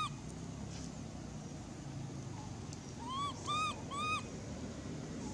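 Infant long-tailed macaque giving short, rising-then-falling whimpering coo calls: one right at the start, then three in quick succession about three seconds in.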